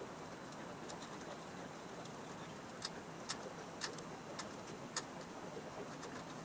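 Hand screwdriver turning a fastener into a steel frame bracket: faint, sharp clicks, about two a second, that start about three seconds in and stop a second or two before the end, over a low steady shop hum.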